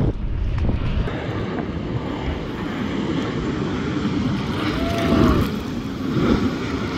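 Jet airliner flying low overhead, its engines making a steady rumble that swells midway as it comes closer.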